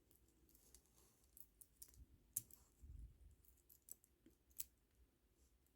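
Faint, irregular clicking of plastic pony beads tapping against each other as they are handled and threaded onto string, with a soft low bump about three seconds in.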